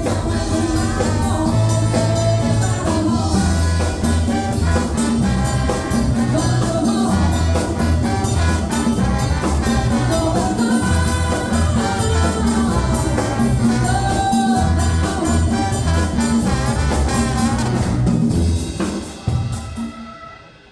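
Band music with brass and drums over a repeating bass riff, dying away near the end.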